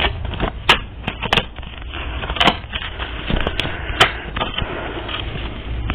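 Tarot cards being shuffled and handled: irregular sharp clicks and snaps of card on card, over a low steady hum.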